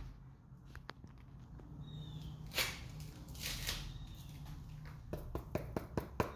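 Handling noise, then a quick run of sharp knocks near the end: knuckles rapping on a rutabaga's hard stem end to show how hard it is.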